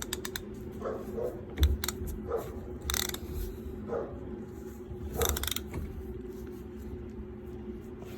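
Ratchet and 7/8-inch socket working the steering-wheel centre nut loose: short bouts of ratchet clicking and metal clinks, four separate bouts with pauses between.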